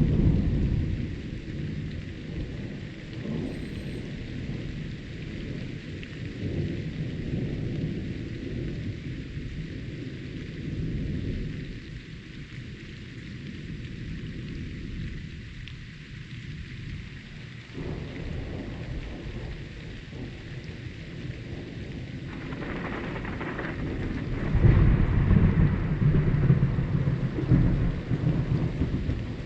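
Thunderstorm: steady rain with thunder rumbling, and a louder, deeper roll of thunder building in the last several seconds.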